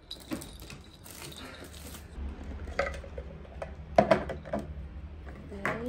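Light plastic knocks and clinks of a citrus juicer and its clear jug being handled on a wooden table: a few scattered strokes, the sharpest about four seconds in and another near the end.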